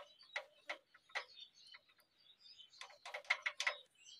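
Loose rocker arm and tappet on a Chinese diesel engine clicking, metal on metal, as the rocker is worked by hand. There are a few separate clicks, then a quick run of about six near the end, showing the excess tappet clearance that causes the engine's popping noise.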